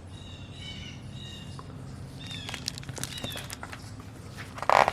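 Birds calling: short high calls, several in a row, some sliding down in pitch. Near the end there is a brief louder burst of noise.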